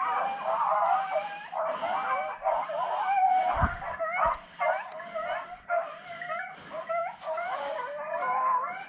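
A pack of beagles and griffons baying together without a break, many voices overlapping: hounds in full cry on the scent of a wild boar. A couple of low bumps come about halfway through.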